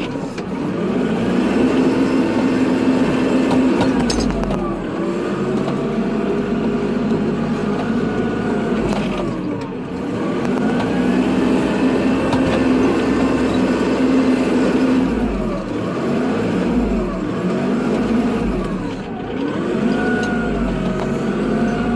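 Kubota tractor's diesel engine running under load while plowing snow. Its pitch rises and falls in a smooth sweep every four to five seconds as the tractor works back and forth.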